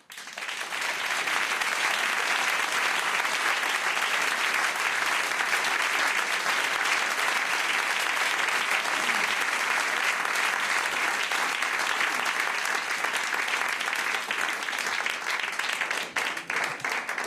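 Audience applauding, swelling up within the first second and holding steady, then thinning into separate claps and dying away near the end.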